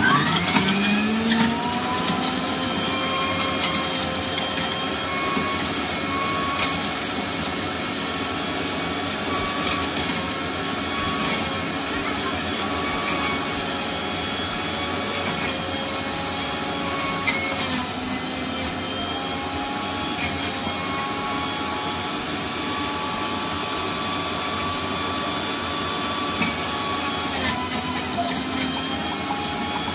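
Electric juicer motor running. It spins up quickly with a rising whine at the start, then runs loud and steady, its pitch sagging briefly now and then as the fruit loads it.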